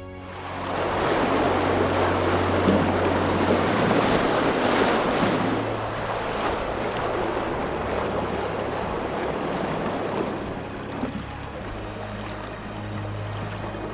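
River whitewater rushing loudly past the boat, a steady roar of water that is strongest for the first several seconds and then eases a little. There is a low rumble of wind on the microphone.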